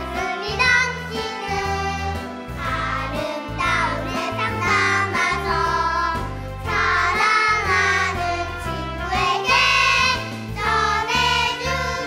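A group of young children singing a Korean children's song together over an instrumental accompaniment with a steady bass line.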